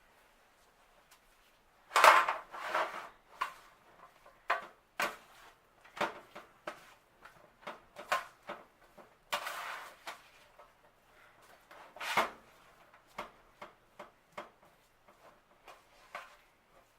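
Cookware and utensils clattering: a run of sharp knocks and scrapes against a pan, loudest about two seconds in, as the cooking peppers are handled.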